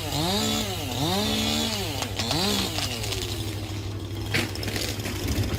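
Chainsaw revving up and down over and over for the first few seconds, then running rougher, with a sharp crack about four seconds in.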